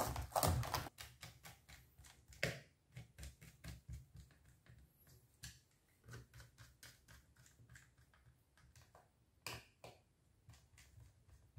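Plastic clicks of an HP ProBook 450 G5's keyboard being pressed down into place, a quick run of them in the first second. Then scattered light clicks and ticks as a small screwdriver works screws in the laptop's base.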